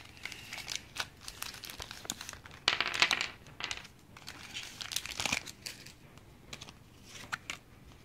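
Foil booster pack crinkling and tearing as it is opened by hand, in irregular crackly bursts. The loudest comes about three seconds in, a smaller one around five seconds, and it is quieter near the end.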